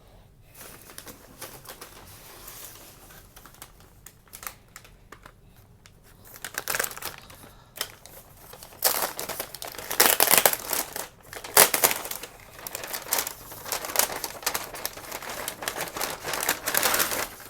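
Packing material crinkling and rustling as hands dig through a shipping box. It is faint at first and gets louder and busier from about six seconds in.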